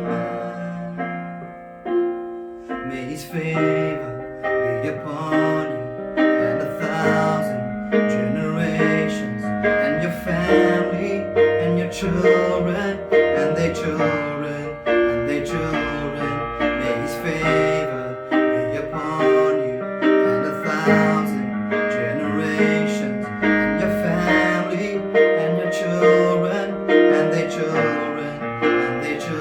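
Instrumental worship music played on a piano or electric keyboard, struck notes in a steady rhythm.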